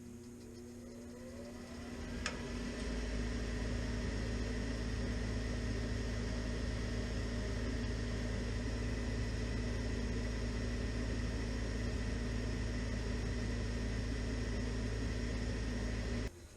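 Furnace draft inducer motor spinning up over the first two seconds, with a sharp click about two seconds in. It then runs steadily with a hum and rushing air until it cuts off suddenly near the end.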